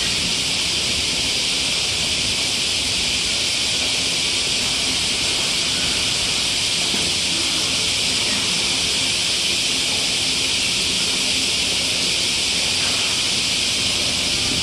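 Steady, even high-pitched hiss that holds at one level with no breaks.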